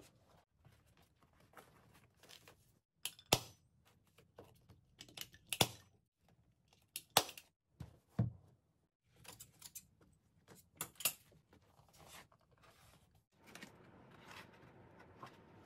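Handling sounds from reupholstering a chair seat: several sharp clicks and taps amid fabric rustling. Near the end comes denser rubbing as a hard plastic seat shell is fitted over the wooden seat base.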